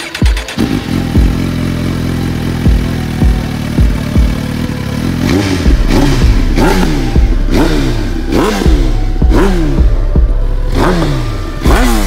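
A sport motorcycle engine held at steady revs for a few seconds, then revved in repeated throttle blips, each rising sharply and falling away, about one a second. Music plays underneath.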